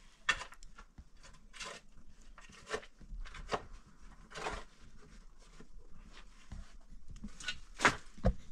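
Irregular scrapes and crunches of grit and stones as a person moves about on rocky ground, with a louder, sharper crunch and a knock near the end.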